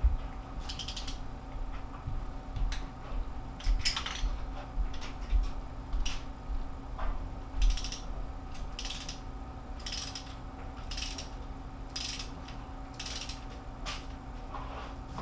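Hand socket ratchet clicking in short runs of back-strokes, about ten of them, some a second apart, as small cylinder-head bolts are run down.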